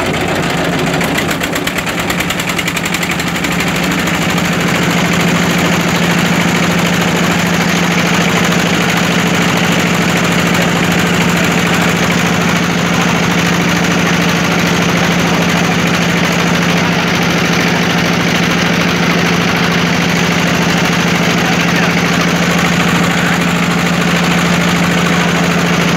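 Boat engine running steadily with an even, unbroken hum as the boat moves along, growing a little louder about five seconds in.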